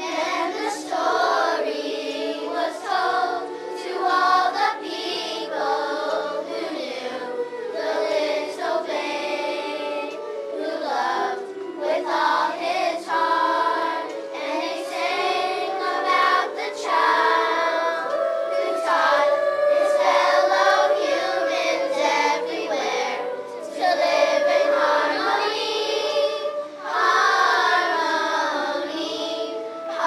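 Children's chorus of third- to fifth-graders singing a song together.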